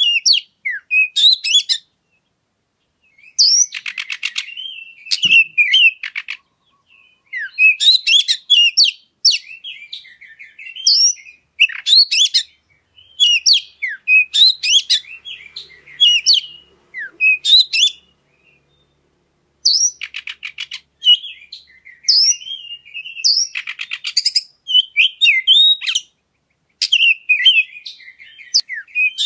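Oriental magpie-robin (kacer) singing a long run of varied, high whistled and chattering phrases. The song is broken by a few short pauses, and a harsh, rattling buzz cuts in a few seconds in and twice more later.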